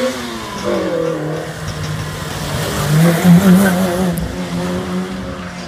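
Fiat Uno slalom car's engine revving hard through a tight turn. The revs rise and fall again and again, and it is loudest about three seconds in.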